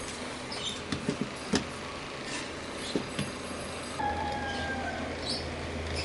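Light clicks and knocks as a soldering iron and a circuit board are handled over a steady hum, with a brief faint falling tone about four seconds in.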